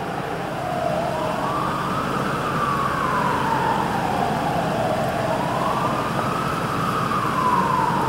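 An emergency siren wailing, slowly rising and falling in pitch, two full wails in eight seconds, over a steady rushing background noise.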